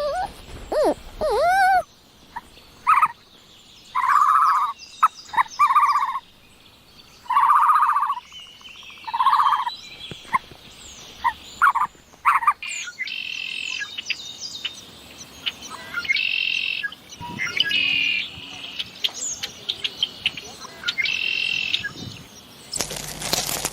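A run of different animal calls. First a few calls that glide in pitch, then about a dozen short, even-pitched calls, each under a second long, and from about halfway on, higher chirping calls mixed with quick clicks.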